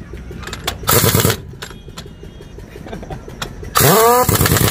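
Pneumatic impact wrench tightening a truck's wheel nuts, in two loud bursts: a short one about a second in and a longer one near the end that opens with a rising whine as the air motor spins up.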